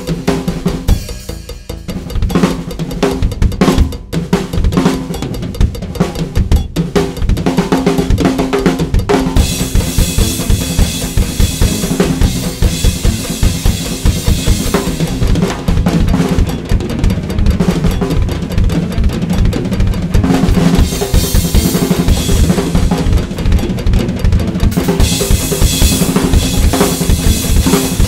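Sonor Essential Force drum kit played fast and hard: dense bass drum, snare and tom strokes. Cymbals come in crashing about a third of the way in and keep washing over the drums with a few short breaks.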